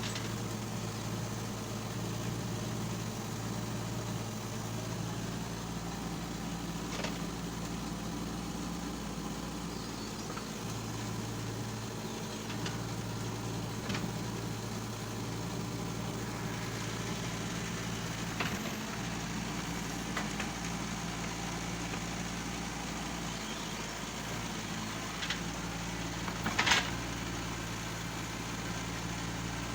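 The diesel engine of a JCB 1CX compact backhoe loader running steadily, with a few short sharp knocks from the machine, the loudest near the end.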